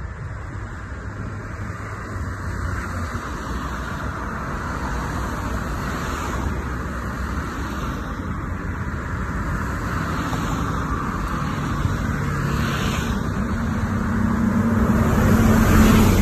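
Steady running noise of a moving train heard from inside the carriage, growing louder toward the end, where a low hum comes in and steps up in pitch.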